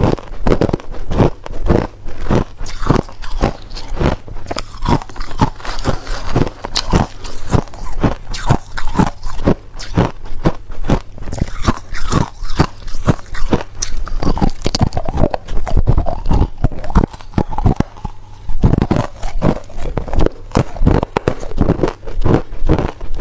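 Ice being bitten and chewed: a steady run of loud, sharp crunches, about three a second, with a short pause near the end.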